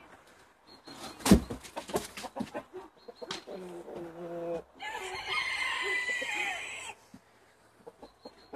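Chickens: a few sharp knocks about a second in, then a low held note, then a rooster crowing for about two seconds in the middle.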